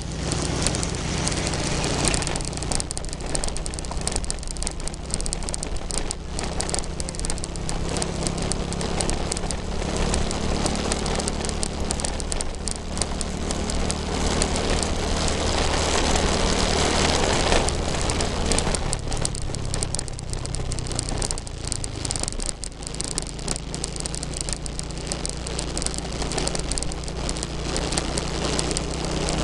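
Motorcycle engine running at a steady cruise, with wind rush and crackling buffeting on the microphone over rough concrete. The wind noise swells for a few seconds around the middle, then eases.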